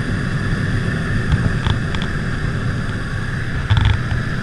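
Steady drone of a light jump plane's engine and propeller heard inside the cabin, with a few short knocks, the loudest near the end.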